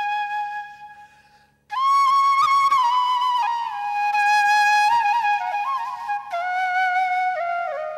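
Background music: a solo flute melody. A long held note fades away, then about two seconds in a new phrase begins with bending, ornamented notes that step down and fade out near the end.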